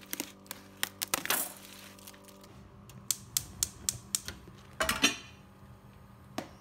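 A gas hob's spark igniter clicks about four times a second as the burner knob is turned, followed by a short rushing sound about five seconds in. Lighter scattered clicks and knocks come earlier.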